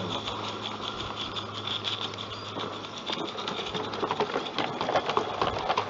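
Garden-scale model goods train running past close by: wheels clicking over the rail joints and the wagons rattling, the clatter busier in the second half. A low hum dies away about a second in.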